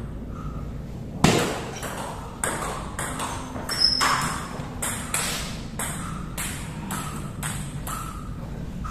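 Table tennis rally: the ball clicking sharply off the paddles and the table, the hits coming about every half second.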